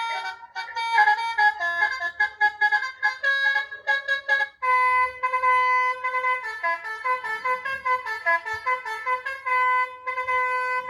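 Electronic telolet-style bus horn module playing a preset tune through its speaker: a melody of quick stepping notes that breaks off briefly about four and a half seconds in, then a new tune with longer held notes.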